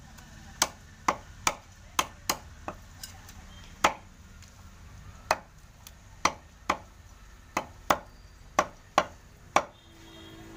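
Meat cleaver chopping chicken pieces on a wooden log chopping block: about fifteen sharp strikes in quick uneven clusters of two or three, with a pause of over a second in the middle.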